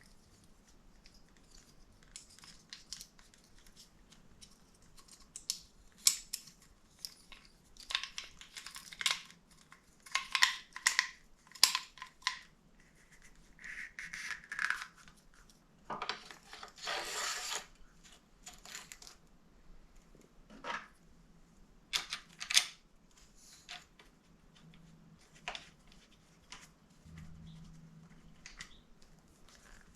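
Tools and metal bike parts being handled in a workshop: scattered clicks, clinks and short scrapes, with a longer scraping noise lasting about a second and a half around the middle.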